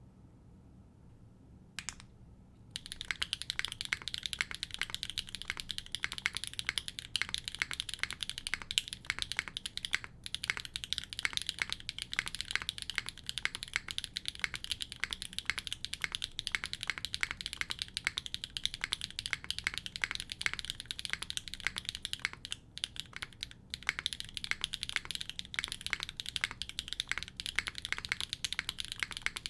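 Neo65 mechanical keyboard with an aluminium plate and HMX Saru V2 switches being typed on quickly, a dense, steady run of keystrokes. One lone click comes about two seconds in, the typing starts just after, and it breaks off briefly about three-quarters of the way through.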